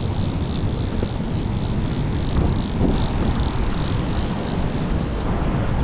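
Steady rush of a shallow, rocky stream, heavy in the low end, with the fine chattering click of a fly reel's ratchet as line is wound in; the reel chatter stops about five seconds in.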